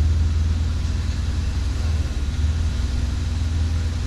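Forklift engine running steadily with a low drone while the forklift hoists an engine out of a car's engine bay.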